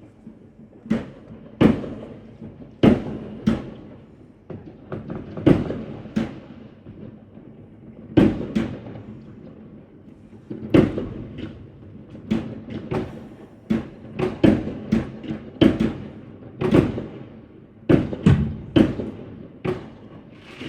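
Fireworks and firecrackers going off, a string of sharp bangs and thuds at irregular intervals, one or two a second, each with a short echo.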